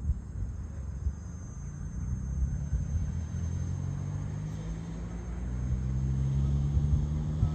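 JCB backhoe loader's diesel engine running with a low rumble, getting louder in the second half.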